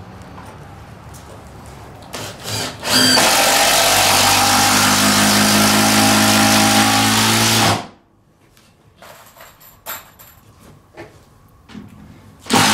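Cordless drill driving a screw down through a rough-cut timber floorboard: a couple of short trigger blips, then one loud steady run of about five seconds that stops abruptly. Another short burst starts right at the end.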